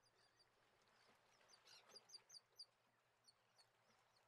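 Faint bird chirps: short, high, repeated chirps, coming thick and fast for about a second in the middle and more sparsely afterwards, over a faint hiss.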